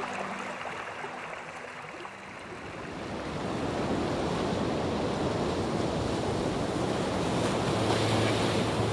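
Ambient electronic music: a soft held synth chord fades out about two seconds in, then a wash of hiss like surf swells up and grows louder, with a low steady drone note entering near the end.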